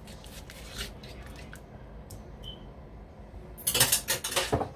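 Spoon lightly clinking and scraping in a frying pan as pepper flakes are stirred into the sauce, then a loud second of rapid clattering of utensil against pan near the end.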